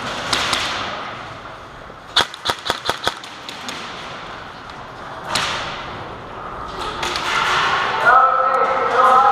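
A quick string of about six sharp airsoft gun shots a couple of seconds in, then a single sharper crack about two seconds later.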